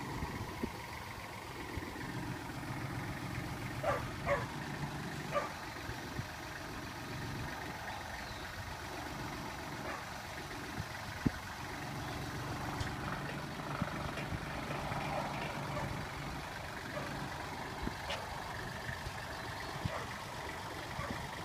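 Tractor engine running steadily under load as its front loader raises a tilting wind-turbine tower, with a few short sharp sounds about four to five seconds in.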